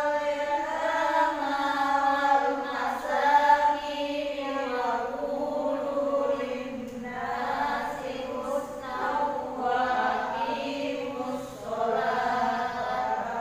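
A man reciting the Qur'an in melodic tilawah style, drawing out long, wavering notes with ornamented turns and short pauses for breath.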